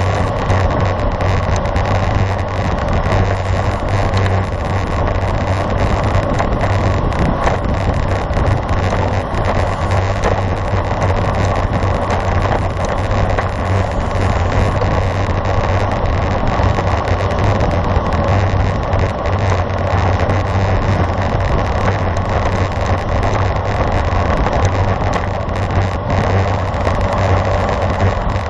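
Steady rush of wind on the microphone, mixed with tyre and road noise, from a road bicycle being ridden. It runs unbroken at an even level.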